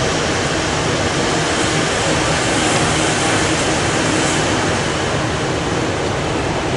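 NS ICMm (Koploper) electric multiple unit running along the line, heard from inside the carriage as a steady rumble and rushing noise.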